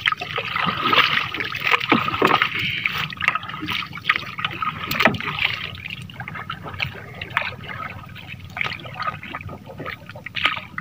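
Water splashing and sloshing around a small boat, with many short, irregular splashes.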